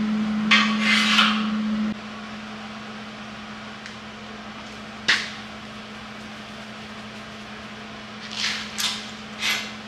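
Steel locking-plier clamps clanking against square steel tubing as they are taken off a tack-welded frame: two clanks about a second in, a single sharp click near the middle, and a few more clanks near the end.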